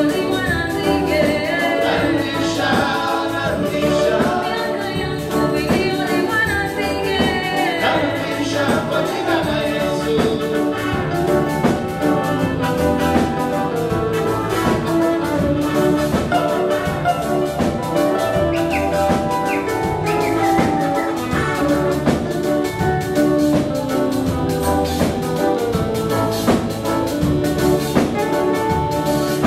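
Live dance band playing a song: a male lead singer over saxophone, electric guitars and drum kit, with a steady dance beat.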